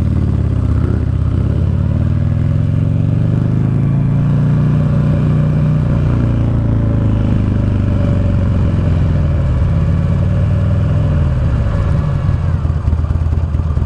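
Buell Lightning Long XB12SS's air-cooled V-twin engine pulling away and accelerating, its pitch rising over the first few seconds, holding steady while cruising, then dropping near the end as the throttle closes.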